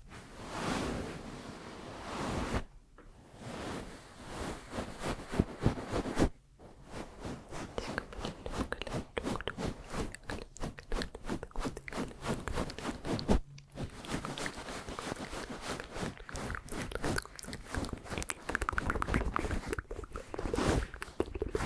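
Close-miked ASMR mouth sounds: a dense run of quick wet clicks and smacks, broken by a few brief pauses.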